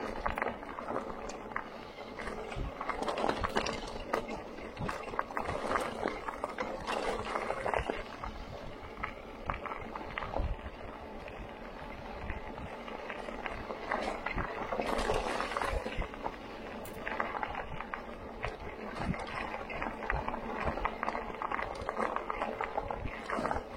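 Bike tyres rolling over a rough, stony trail: a steady rushing noise with frequent small knocks and rattles, swelling and easing as the ground changes.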